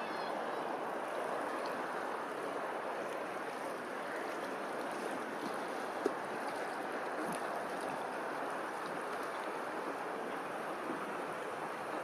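Steady rushing noise of open water, with a single brief click about six seconds in.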